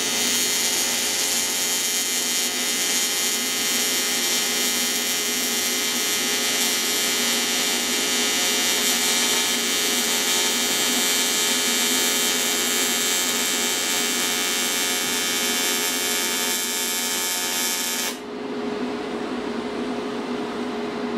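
AC TIG welding arc on aluminum from an AHP Alpha TIG 200X inverter welder, giving a steady, harsh buzz while the bead is laid. The arc cuts off suddenly about 18 seconds in, leaving a steady low hum.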